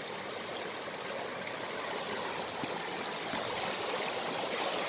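Mountain stream flowing steadily over rocks, a continuous rushing of water, its flow swollen by the previous day's rain.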